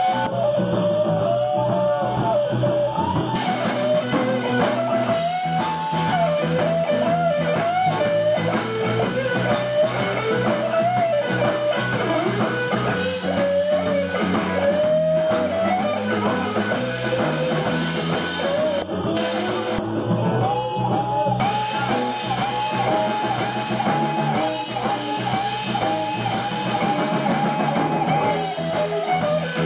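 Electric blues band playing an instrumental stretch, with a guitar carrying the melody in bent notes over the band. Near the end the lead holds one long wavering note.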